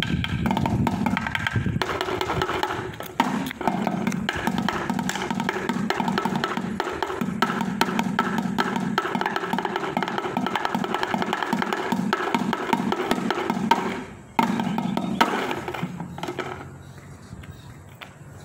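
Fast drumming with drumsticks on empty metal paint cans and a plastic bucket, the cans ringing under the strokes. It breaks off about fourteen seconds in, returns for a short final stretch, then stops.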